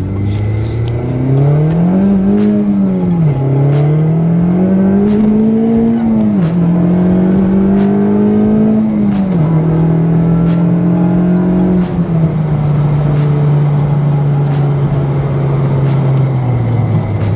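Honda Civic Type R's turbocharged four-cylinder engine accelerating hard through three gears. Its pitch climbs on each pull and drops sharply at each upshift, then holds steady at a cruise and eases off near the end.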